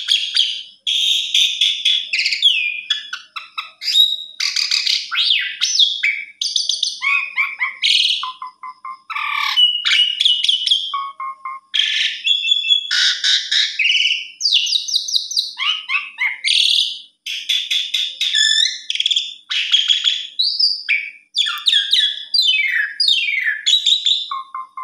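Asian pied starling (jalak suren) singing a long, varied song without pause: whistles, chattering phrases, rapid trills and quick falling notes run one into another.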